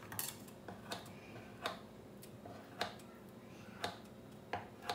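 Kitchen scissors snipping the filled pizza crust edge on a wooden board: about ten light, sharp clicks at irregular intervals.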